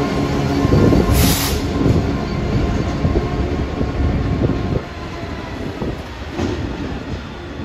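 Freight train passing, its wagons rumbling heavily over the track with irregular knocks. There is a short burst of hiss a little over a second in, and the rumble drops somewhat about five seconds in.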